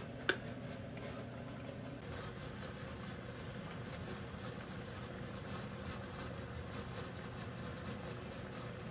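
A steady low mechanical hum with a faint hiss, and one sharp click shortly after the start.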